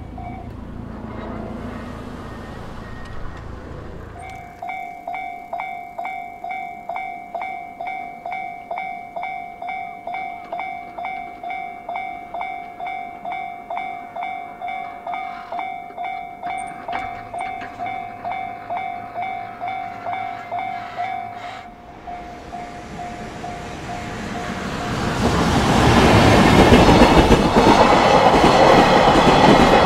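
Japanese level-crossing warning signal ringing, about two electronic bell strikes a second, then fading. About 25 seconds in, a train passes over the crossing loudly with wheels clattering on the rail joints.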